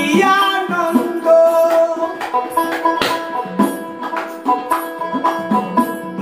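Bengali Baul folk music: hand drums keep a steady beat under a melodic line that glides at the start and then holds long notes.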